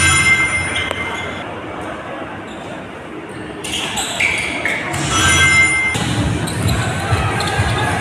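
Basketball game sound in an arena hall: sneakers squeaking on the court and the ball bouncing, over crowd noise. The bouncing is heard as a run of low thuds near the end.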